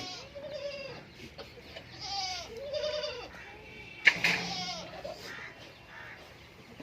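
Goats bleating, a string of short wavering calls from several animals that overlap at times, with one sharp knock about four seconds in.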